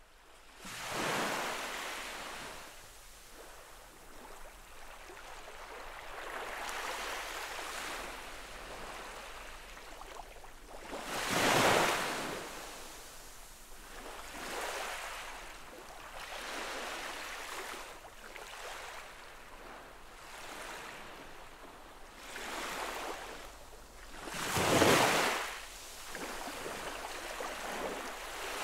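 Small ocean waves lapping on a sandy shore. The wash swells and fades every few seconds, with two louder surges: one near the middle and one near the end.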